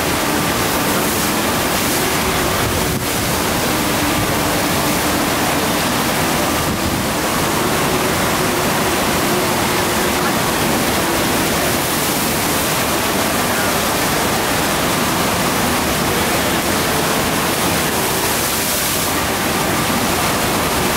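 FlowRider sheet-wave machine: a thin, fast sheet of pumped water rushing up the padded riding slope, a loud, steady rush without a break.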